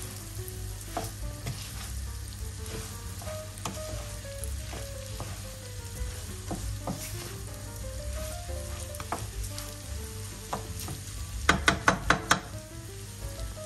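Ground meat and rice frying in oil in a pan, sizzling steadily as they are stirred, with scattered clicks of the spoon against the pan. A quick run of about five sharp knocks comes shortly before the end.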